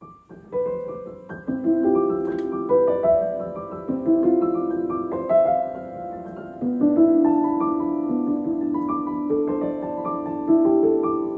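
Background piano music playing slow, held chords, starting about half a second in.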